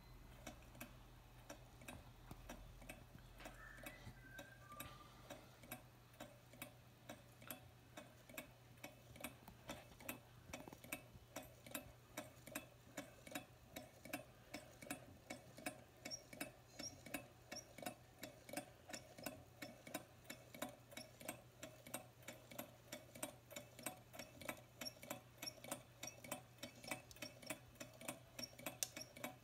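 Low-temperature-differential Stirling engine running on a mug of hot water, its mechanism giving a soft, regular clicking once per turn of the flywheel. The clicks start at about one and a half a second and speed up steadily to about three a second as the engine gathers speed.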